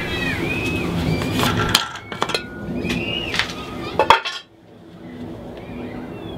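Brass drain tap and plastic jug being handled at a stationary engine: a series of sharp clinks and knocks, the loudest a little before four seconds in, with short high gliding tones between them.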